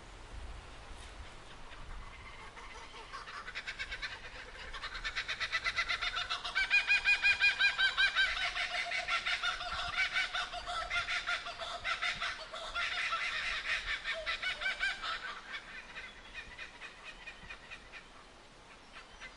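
Laughing kookaburras calling together in their rolling, cackling laugh. It builds from about three seconds in, is loudest around seven seconds, and dies away after about fifteen seconds.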